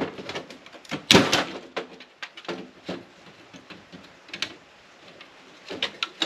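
Handling of scrap metal parts and hand tools while stripping brass: a scattered series of clicks and knocks, the loudest about a second in.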